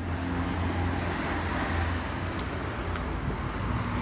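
Street traffic: a motor vehicle's engine running with a steady low hum, and road noise that swells about one and a half seconds in.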